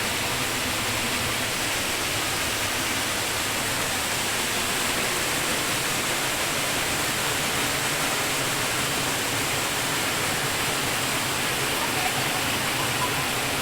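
Rushing river water, a steady, unbroken flow.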